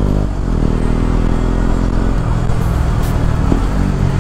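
KTM Duke 125's single-cylinder four-stroke engine through an Akrapovic exhaust, running under load as the bike rides. There is a brief dip about a third of a second in, and then the revs climb and hold fairly steady.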